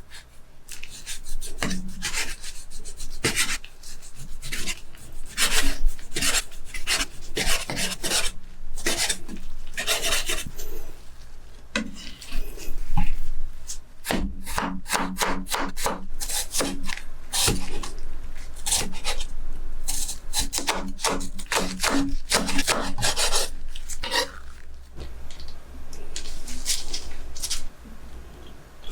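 Knife slicing a thawed raw chicken breast on a cutting board, in many repeated strokes with a few short pauses.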